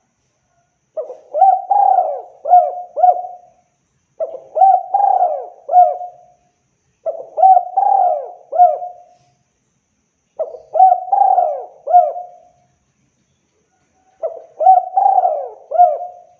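Spotted dove (tekukur) cooing: five phrases of several low coos each, about three seconds apart, with short silences between them.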